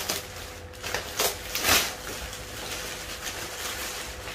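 Clear plastic wrapping crinkling and rustling as it is handled and pulled off a rod case, with a few sharper crackles in the first two seconds.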